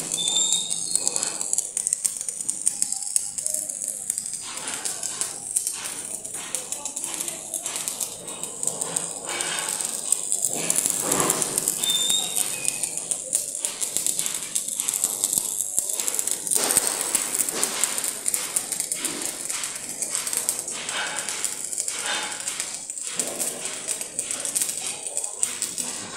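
Stick (shielded metal arc) welding on steel sheet: the arc crackles and sizzles steadily, a dense high-pitched frying hiss with constant small pops.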